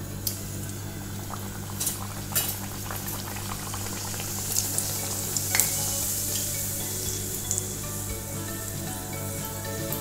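A wheat-flour puri sizzling as it deep-fries in hot oil in a wok. The sizzle grows louder about halfway through, with a few sharp clicks and pops.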